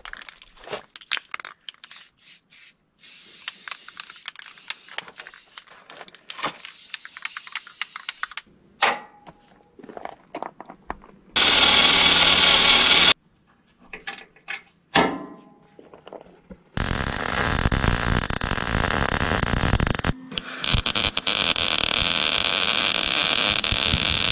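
Small clinks and handling of tools and parts, then a cordless drill running for about two seconds. Near the end a small wire-feed (MIG) welder arcs on the steel chassis frame in two long steady runs; the welder is near its limit on this thick frame steel and struggles to get the welds to sink in.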